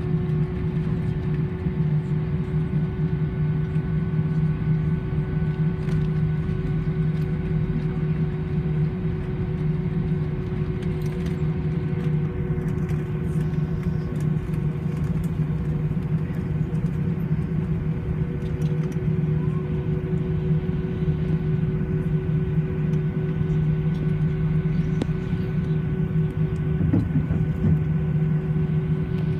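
Cabin noise inside an Airbus A320 on the ground: the jet engines idling, a steady low hum with a steady higher tone over it.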